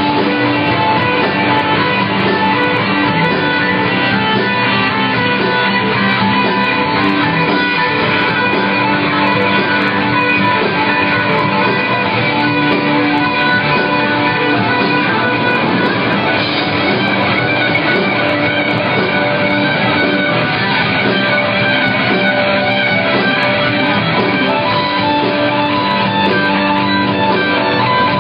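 Rock band playing live at full volume, electric guitar to the fore, heard from the audience through a phone's microphone.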